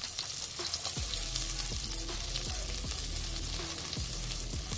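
Sliced red onions sizzling in hot oil in a metal cooking pot: a steady frying hiss with scattered small pops and knocks as they are stirred around the pot.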